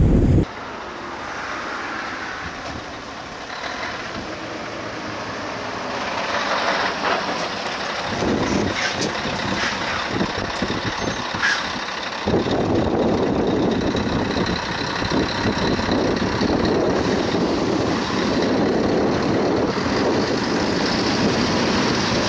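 Heavy truck driving past on a motorway, with engine rumble and tyre noise amid other traffic. The sound changes abruptly about half a second in and again about twelve seconds in, the low rumble returning louder.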